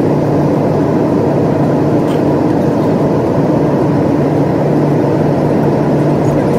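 Loud, steady vehicle noise: a continuous rumble with a constant low hum underneath.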